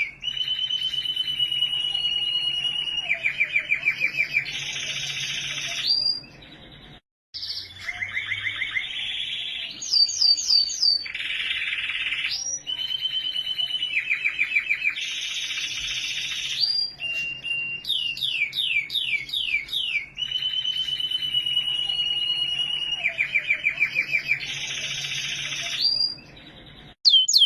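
Domestic canary singing a long, continuous song of rapid descending sweeps, long held whistles and fast trills. It breaks off abruptly twice, about a quarter of the way in and near the end.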